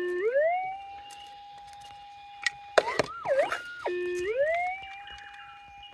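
Minelab GPX 6000 gold detector's audio: a steady threshold hum broken twice by a target signal, the pitch dropping low and then sliding back up, with a wavering up-and-down swing between the two and a few sharp scraping clicks.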